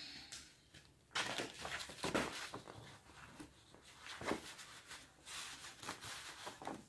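Faint rustling and soft taps of a paper notebook page being handled and moved, in a few short, scattered bursts.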